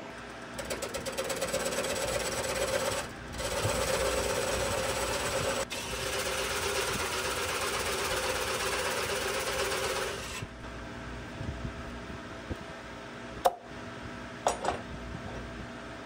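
A turning tool cutting into a spinning maple bowl blank on a wood lathe, a continuous hissing, tearing cut that pauses briefly about three seconds in and stops about ten seconds in. A few sharp knocks of wood follow near the end.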